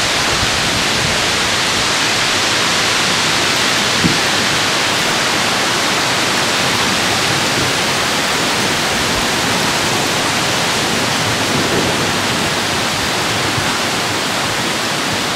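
Torrential thunderstorm rain pouring down, a steady, dense hiss.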